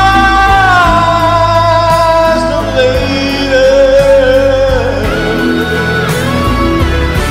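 A man singing a slow ballad over a backing track, holding a few long notes that each last a second or more.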